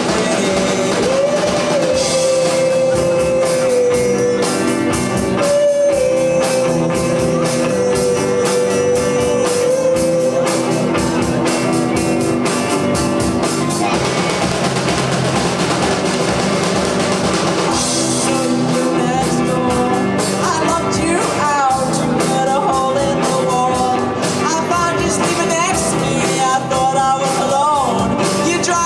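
Live rock band playing: drum kit with cymbals, guitars and a lead singer. The singer holds one long note for most of the first ten seconds, then sings shorter lines over the band.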